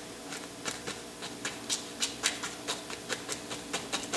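Fan brush heavily loaded with oil paint stroking upward against a canvas: an irregular run of short scratchy strokes, a few a second.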